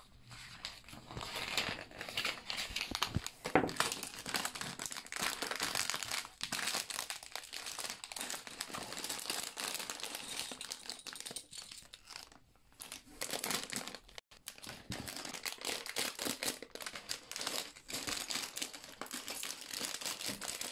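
Thin plastic parts bags crinkling and tearing as they are handled and ripped open by hand: a busy, near-continuous crackle full of small clicks, with a couple of short pauses around the middle.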